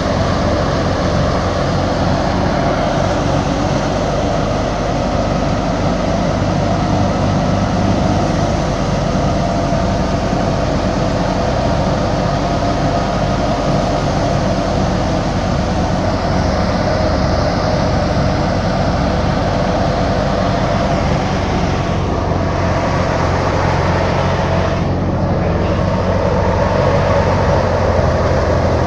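Tractor-powered grain thresher running steadily, its drum threshing the sheaves being fed into it, over the tractor's engine. The steady low engine note lies under a dense noise of threshing.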